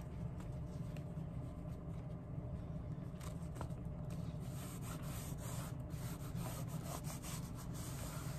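Hands handling a patch of coarse cloth and rubbing and pressing it onto the bottom of a shoe, with soft rustling, scraping and light clicks. A steady low hum from the shop runs underneath.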